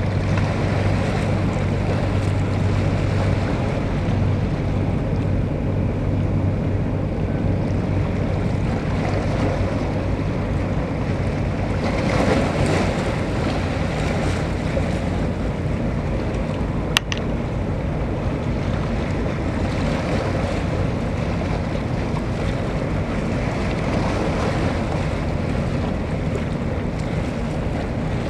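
Wind buffeting the microphone over the wash of water, with a low steady engine hum through the first ten seconds or so. A gust swells about twelve seconds in, and a single sharp click comes about seventeen seconds in.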